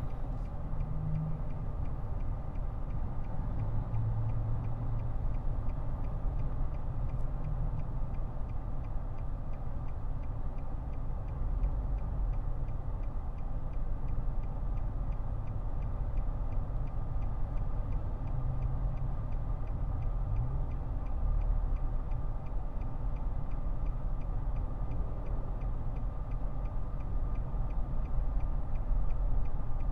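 Steady low road and engine rumble heard from inside a moving Nissan sedan's cabin.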